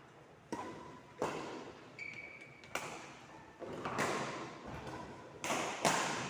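Ball rally: a series of sharp ball strikes and bounces, about seven in six seconds at an uneven pace, echoing in a large hall, with a brief high squeak about two seconds in.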